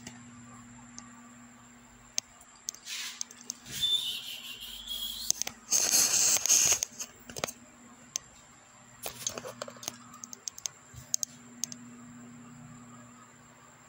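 Handling noise from a phone held on a selfie stick tripod as it is moved about: rubbing and rustling from about three to seven seconds in, loudest around six seconds, then a scatter of light clicks and taps.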